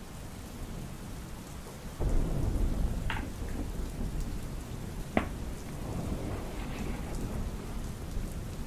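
Heavy rain falling steadily, with a low rumble of thunder breaking in about two seconds in and two sharp cracks a couple of seconds apart.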